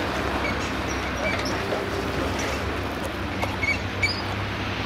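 Steady low vehicle hum with a few short, high squeaks scattered through it.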